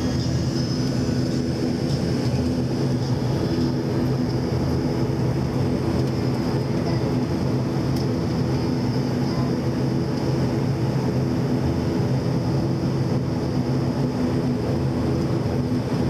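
Turboprop airliner's engines and propellers running with a steady drone, heard from inside the passenger cabin while the plane taxis.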